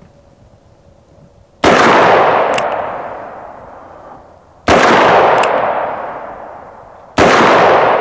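.44 Magnum revolver firing three shots, about three and two and a half seconds apart, each a loud crack that trails off in an echo over about two seconds.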